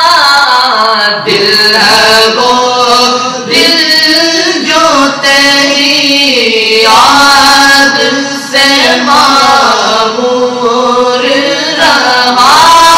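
A group of male voices singing an Urdu na'at together, unaccompanied, in long held notes that glide up and down, phrase after phrase with short breaths between.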